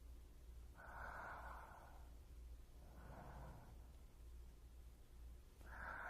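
A person's breaths close to a binaural microphone: three soft breaths, the first and last about a second long and a shorter one between them.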